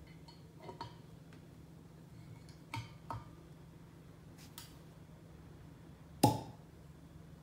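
A cork being drawn from a wine bottle with a lever corkscrew: a few small clicks and creaks as the corkscrew works into the cork and levers against the bottle, then one sharp pop as the cork comes free near the end.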